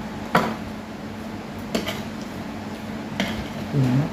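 Metal spoons and chopsticks clinking against ceramic plates and bowls during a meal. There are three sharp clinks, the first the loudest, and a brief low hum near the end.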